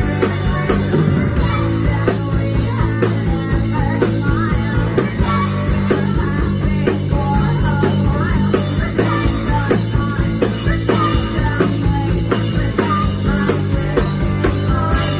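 Live punk-flavoured rock band playing loudly: electric guitar and drums with female vocals.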